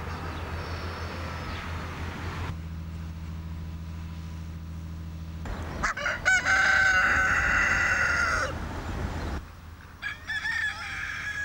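A rooster crowing: one long crow about six seconds in, with shorter clucks and calls from other farmyard fowl around it.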